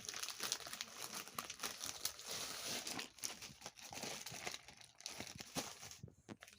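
Packaging crinkling and crackling as a parcel is unwrapped by hand. The crinkling drops off sharply near the end, leaving a few faint ticks.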